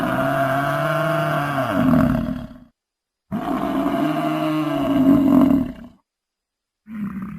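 A large wild animal's roaring call, given twice: two long pitched calls of about three seconds each with a short gap of silence between, then a brief third call near the end.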